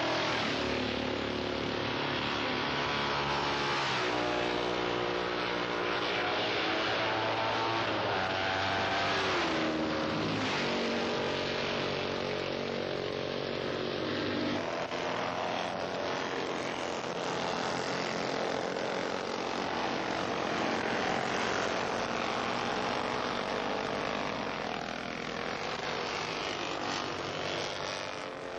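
Historic-class racing motorcycle engines at full throttle, passing one after another. Their engine notes rise and then drop in pitch as the bikes go by.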